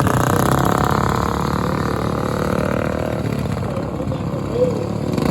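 Racing riding lawn mower engines running hard, loud at first and easing off after about three seconds as they move away.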